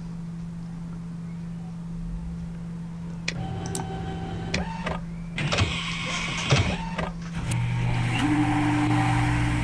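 Several clicks, then an electric motor whirring up and settling into a steady, even hum for the last couple of seconds.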